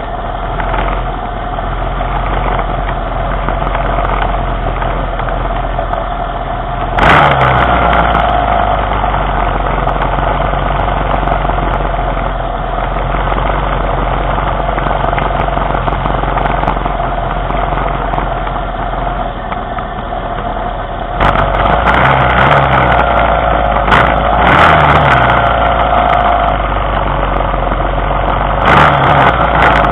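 Vehicle engine idling steadily while stopped at a light, with cross traffic passing. It gets louder about seven seconds in, again after about twenty-one seconds, and near the end.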